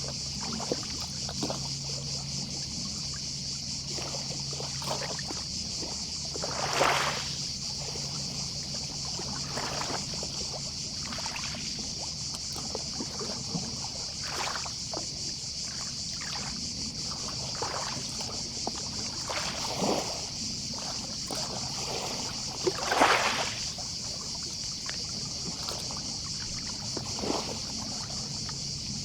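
Gentle sea waves lapping at the shore in small irregular splashes, a few of them louder about 7, 20 and 23 seconds in, over a steady, distant chorus of cicadas.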